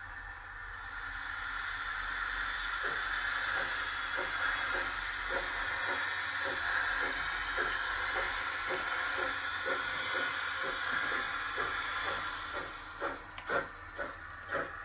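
Steam-locomotive sound from an ESU LokSound 5 XL decoder in a BR 50 model locomotive, heard through its loudspeaker: a long hiss of steam from the cylinder drain cocks with a soft beat about twice a second, as the smoke generator blows vapour at the cylinders. Near the end the hiss stops and sharper, uneven chuffs begin.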